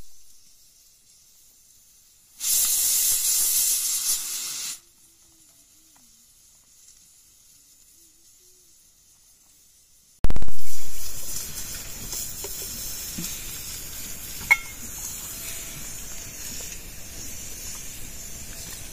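Hissing noise: a short burst of high hiss a couple of seconds in, then, after a quiet stretch, a loud sudden onset that settles into a steady hiss with a single click near the middle of it.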